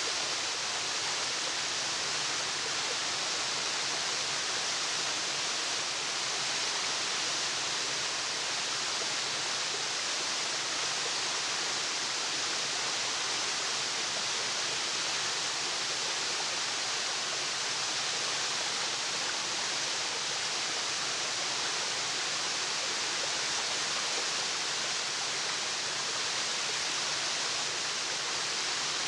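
Waterfall: a steady, even rush of falling water with no breaks or separate splashes.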